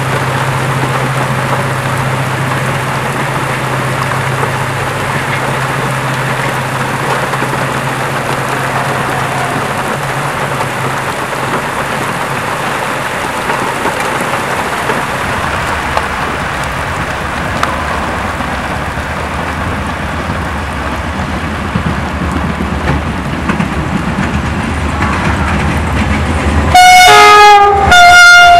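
Steady hiss of heavy rain, with a diesel locomotive's low engine rumble building in the second half as an LDE2100 (EGM621) diesel-electric locomotive approaches. Near the end the locomotive sounds its horn in two loud blasts, the second longer, the pitch dropping slightly as it passes.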